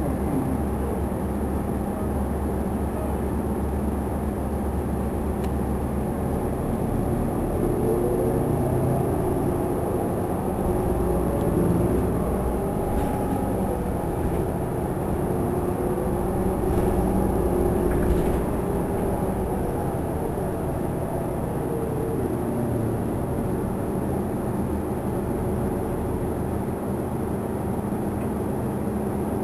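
A 2009 New Flyer DE40LF diesel-electric hybrid bus running, heard from inside the passenger cabin: its Cummins ISL diesel engine and Allison EP 40 hybrid drive as the bus moves through traffic. A whine rises in pitch and later falls again.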